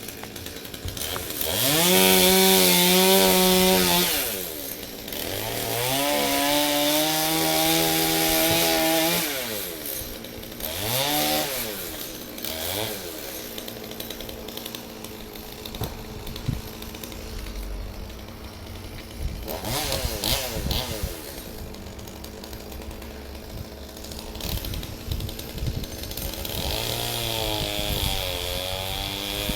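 Chainsaw high in a tree, revved up to full speed and held there for a few seconds at a time, twice near the start, then a couple of short revs, dropping back to idle between them, and revving up again near the end.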